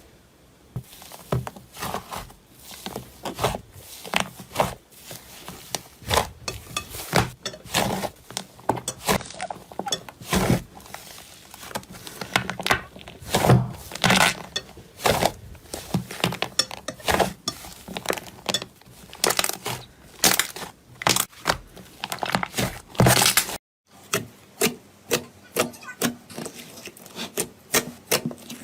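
Slime being squeezed and poked by hand, giving a dense, irregular run of sticky pops and crackles. It breaks off for a moment about three-quarters of the way through, then carries on.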